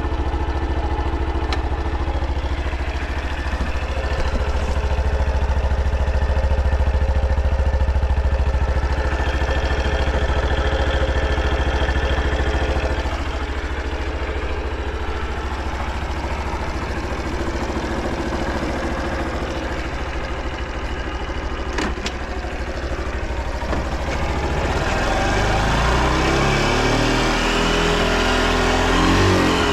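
Honda Super Cub 50 Pro's small single-cylinder four-stroke engine idling steadily. In the last few seconds its speed rises and falls as it is revved. The seller presents the engine as running without abnormal noise.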